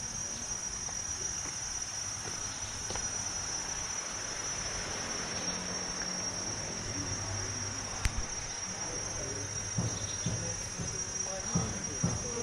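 Steady, high-pitched insect drone: one unbroken shrill whine that holds the same pitch throughout, with a single faint click about eight seconds in.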